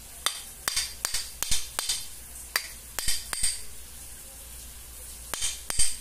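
Hammer tapping the steel shaft of a fan motor's rotor, driving the shaft further in so its worn, scratched section ends up hidden inside the rotor. About ten sharp metallic taps come several a second, then a pause of about two seconds, then a few more near the end.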